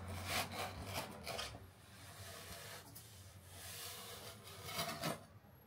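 A knife drawn through a ceramic fiber sheet along a steel ruler on a wooden board, giving a run of dry, rasping scrapes in the first second and a half. Quieter rubbing of the fibers follows as the cut strip is handled, with another brief scrape about five seconds in.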